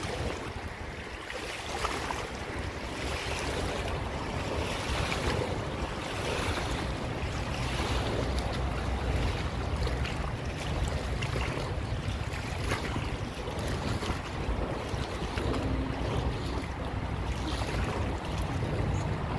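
Wind buffeting the microphone with a steady low rumble, over the continuous rush of a fast-flowing river.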